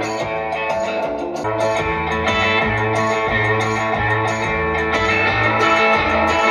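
Guitar music with a steady, repeating bass line, played back through a 1960s Tesla ARO 835 bass loudspeaker that is out of its enclosure, as a sound test.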